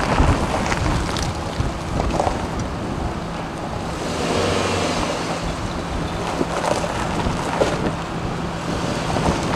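Suzuki Jimny running slowly over a stony dirt track: a steady low engine hum with scattered small clicks and knocks, and wind buffeting the microphone.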